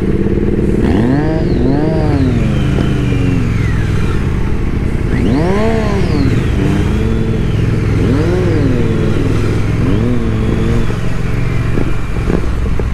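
Motorcycle engine running under way, revving up and dropping back several times as the throttle is opened and rolled off.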